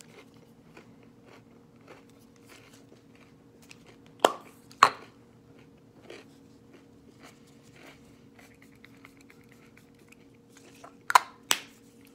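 Soft chewing of food with faint small ticks, over a steady low hum. Two pairs of sharp clicks stand out, about four seconds in and again near the end.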